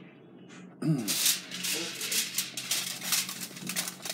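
Foil bag being crinkled and worked open by hand: a dense, crackling rattle that starts about a second in and keeps going.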